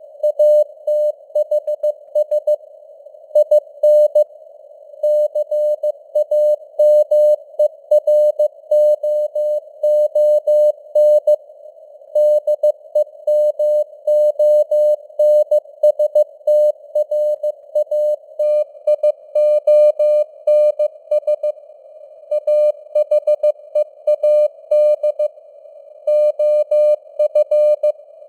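Morse code (CW) sent at 15 words per minute as a steady single-pitch beep, keyed on and off in dots and dashes with short gaps between characters and words. A faint hiss of simulated radio band noise lies around the tone.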